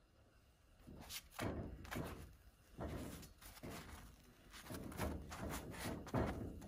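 Brioche bun halves being flipped by hand in a cast iron skillet: a run of soft thuds and light knocks on the pan, about two a second, starting about a second in.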